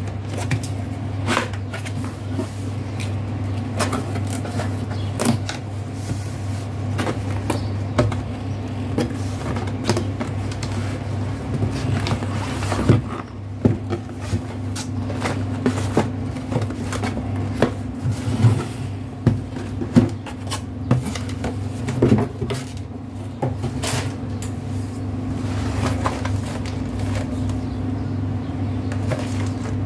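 Cardboard packaging being handled: a box lid and flaps opened and inner boxes lifted out and set down, giving scattered taps, knocks and scrapes of card. A steady low hum runs underneath.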